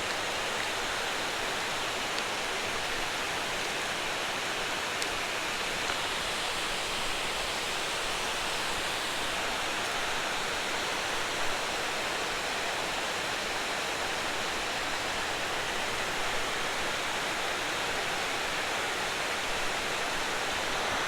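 Steady rushing of river water pouring over a spillway, an even, unbroken hiss.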